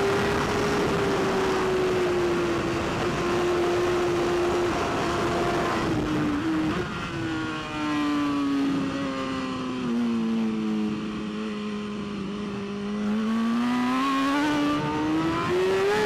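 Inline-four superbike engine running hard at high revs, heard onboard. About six seconds in, the revs drop in a few steps as the bike shifts down for a slow corner, and the pitch sinks low. Then it climbs steadily as the bike accelerates out.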